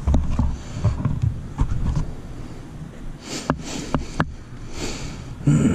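Sniffs and breaths close to the microphone over a low handling rumble, with three sharp little clicks about three and a half to four seconds in.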